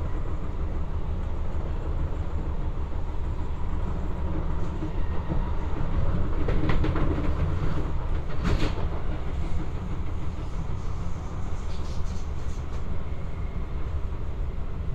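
Cabin noise of a Kawasaki–Nippon Sharyo C751B electric metro train running between stations: a steady low rumble of wheels on rail. Halfway through it briefly gets louder, with a few sharp clicks.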